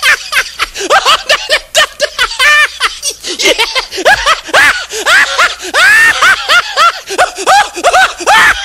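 High-pitched, rapid cackling laughter: short rising-and-falling bursts, several a second, without a break.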